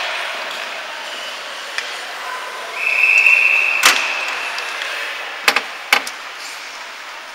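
Ice hockey rink: a referee's whistle blown in one steady blast of about a second and a half, with a sharp crack during it and two more sharp knocks of sticks and puck shortly after, over the rink's constant background noise.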